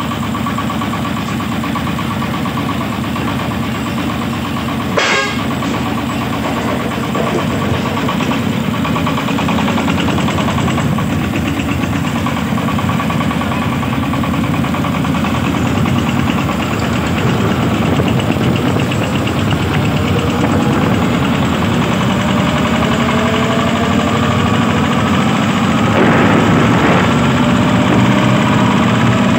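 Diesel engine of a công nông farm vehicle running steadily under test, with one sharp knock about five seconds in. The engine note climbs slowly and grows a little louder over the last several seconds.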